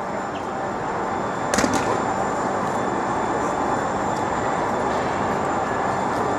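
Steady city traffic noise, swelling slightly, with two sharp clicks about a second and a half in.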